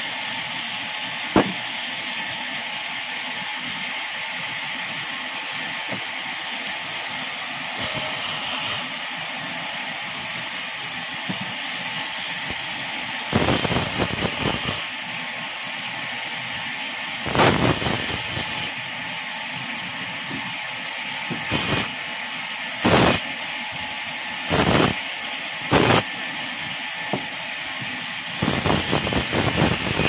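Sawmill band saw running with a steady high hiss as its blade cuts through a raw log. Several louder bursts of cutting noise come in the second half, the longest about a second and a half.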